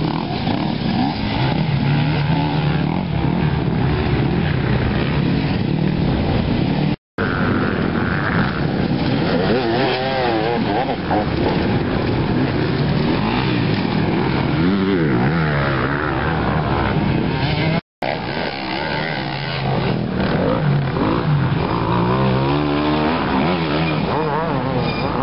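Enduro dirt bike engines revving hard under load as riders climb a steep, rutted dirt slope, the pitch rising and falling with the throttle. The sound cuts out for an instant twice.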